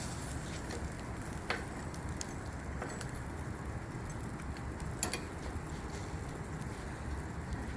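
Fish grilling over a charcoal fire: a steady sizzle with a few sharp crackles, about a second and a half in and again about five seconds in.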